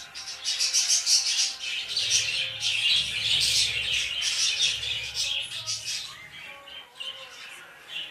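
A flock of caged budgerigars chattering and chirping, dense and busy, thinning out about six seconds in.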